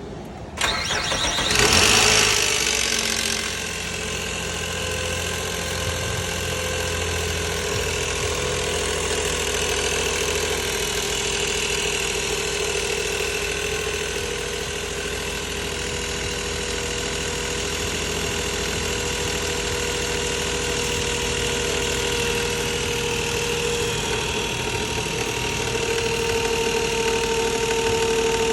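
2006 Nissan Maxima's 3.5-litre V6 starting about half a second in, revving up briefly as it catches, then settling into a steady idle with the timing chain rattle.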